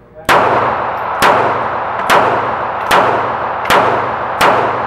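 Six shots from a Taurus PT738 TCP .380 ACP pocket pistol, fired at an even pace a little under a second apart. Each report rings on and echoes in an indoor range.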